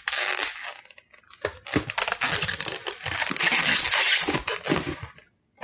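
White plastic wrapping crinkling and rustling as a camera body is pulled out of it, in two stretches with a short pause about a second in.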